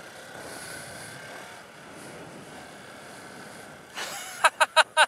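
Honda Super Cub C125's single-cylinder four-stroke engine running at low speed while riding, with wind noise on the bike-mounted camera's microphone. About four seconds in, a quick run of loud, short voice sounds.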